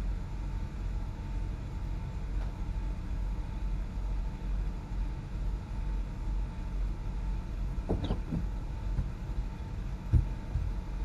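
Steady low rumble of a vehicle driving on the road, with a faint steady tone over it. A brief squeak comes about eight seconds in, and a sharp click just after ten seconds.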